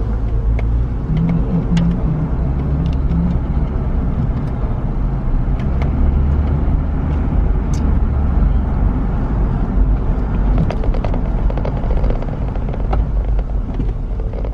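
Car cabin noise while driving: a steady low rumble of engine and tyres on the road, with a few faint clicks.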